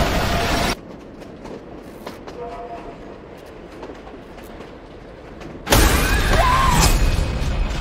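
Loud rumble of a subway train running, cutting off suddenly under a second in to a low hush with faint ticks. Near the end the loud train noise rushes back in, with a wavering high tone over it.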